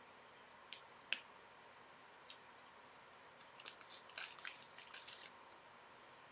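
Hockey cards being handled: three light clicks, then about two seconds of crinkly rustling.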